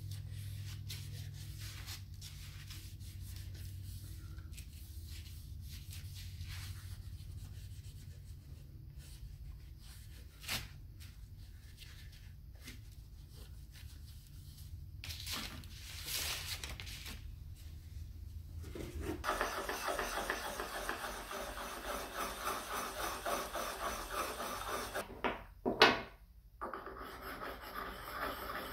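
A cloth rubbing over a wooden spokeshave, faint against a low steady hum. About two-thirds of the way through, this changes to fast back-and-forth scraping as a small hone is worked along a spokeshave blade to sharpen it. Near the end there are two sharp, loud knocks.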